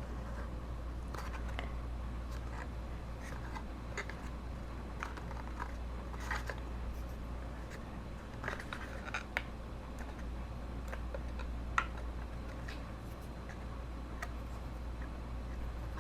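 Faint scattered clicks, taps and light scratches of cardstock craft pieces being handled and glued, over a steady low hum.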